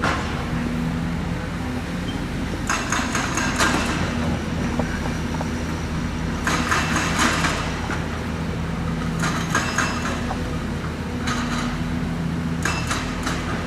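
Heavy diesel excavator engine running steadily, with about five bursts of clanking and scraping as the steel bucket works against rock.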